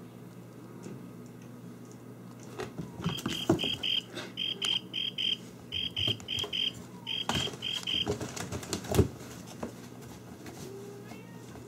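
An electronic beeper sounding a high beep in quick groups of about four, for about five seconds from roughly three seconds in. Scattered knocks and clatter run alongside it, with a loud thump near the nine-second mark.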